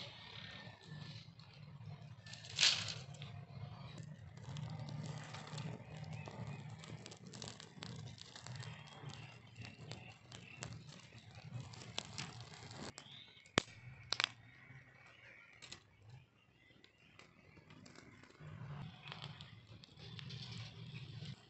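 Open fire of dry palm fronds and sticks burning, crackling with many small pops and a few louder sharp snaps, over a low uneven rumble.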